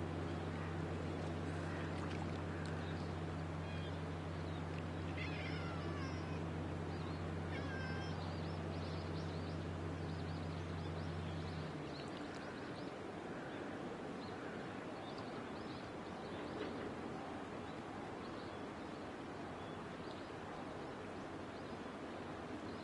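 A cat meowing a few times over a steady rushing background, with a low hum that cuts off about halfway through.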